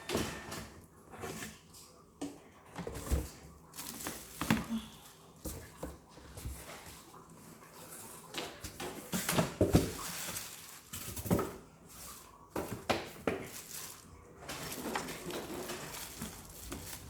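Irregular handling noises: scattered knocks, taps and short rustles, with the loudest cluster about two-thirds of the way through.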